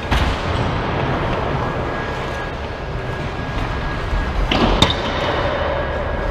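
Indoor ice rink ambience: a steady hiss with a faint steady tone. A sharp knock comes at the start, and a louder hard clack with a brief metallic ringing comes about four and a half seconds in.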